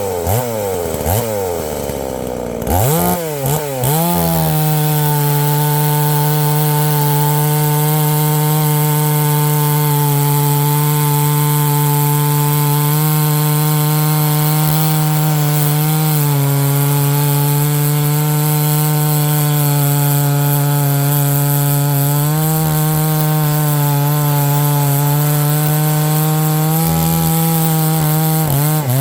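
Large two-stroke chainsaw, a 72 cc-class saw, blipped a few times and then held at full throttle through a long cut in wood, its pitch staying steady. Near the end it drops off the cut and revs up and down.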